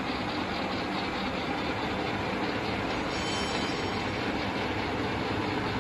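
Induma vertical milling machine's vertical axis traversing in rapid: steady mechanical running of the feed motor and gearing.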